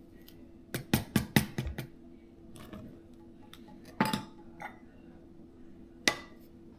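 Measuring cup knocking and clinking against a mixing bowl while flour is measured in: a quick run of knocks about a second in, then single ringing clinks near four and six seconds in.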